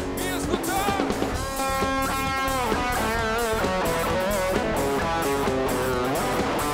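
Live band playing an instrumental passage of a worship rock song: an electric guitar lead with bending, wavering notes over bass and a steady beat.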